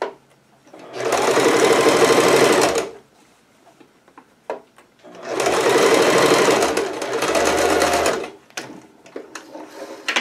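Household sewing machine running a straight stitch through thin fabric, in two runs of about two and three seconds separated by a short pause, followed by a few light clicks as the fabric is handled.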